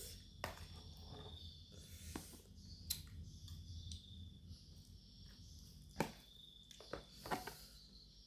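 Eating sounds at a mukbang meal of chicken noodles: scattered sharp clicks and taps of cutlery against a bowl, about six in all, over a faint low hum.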